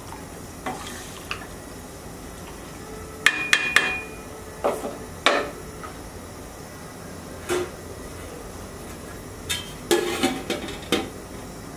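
Metal cookware clanking: a spoon knocking and scraping in a pot of rice and a lid being set on, in scattered knocks and clinks, one of them ringing briefly about three seconds in and a busy run of clanks near the end.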